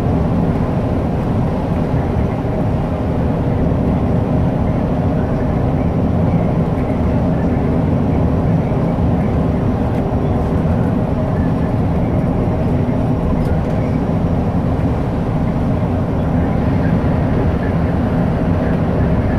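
Volvo 8500 bus heard from inside the passenger cabin while driving: engine and road noise in a steady low drone.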